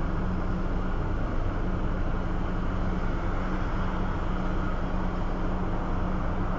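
Steady machinery running with a constant low hum and even noise, no change throughout.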